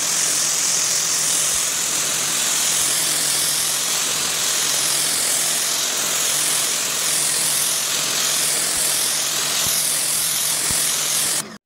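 Pressure washer spraying concrete: a loud, steady hiss of the water jet on the slab over a low hum from the pump, cutting off suddenly near the end.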